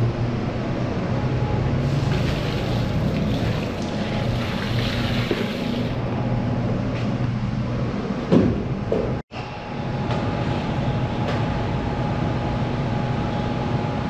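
A steady low mechanical hum with a few light knocks and scrapes over it, broken by a short dropout about nine seconds in.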